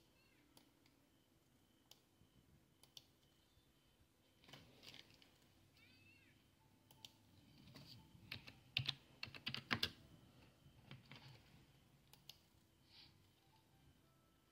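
Faint, scattered computer clicks, with a quick run of keyboard typing about halfway through.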